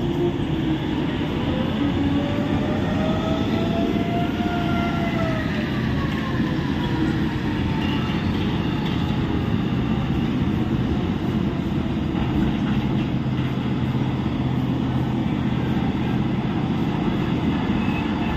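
Large mining haul trucks driving past with a steady, heavy diesel engine rumble. A whine rises and then falls in pitch from about one to seven seconds in.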